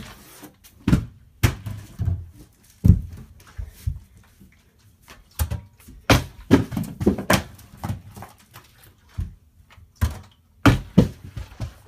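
A plastic soda bottle partly filled with water being tossed for bottle flips, landing and bouncing on hard surfaces: a series of sharp thuds and knocks, bunched about six to seven and a half seconds in and again near the end.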